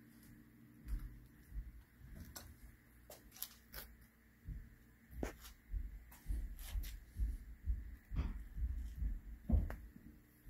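Footsteps of a person walking on a bare concrete floor, irregular low thumps with sharp scuffs and clicks, heard in an unfinished basement.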